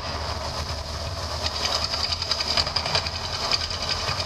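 The Mirage volcano attraction erupting: a steady deep rumble with dense crackling over it, as flame and water jets shoot from the top of the artificial volcano.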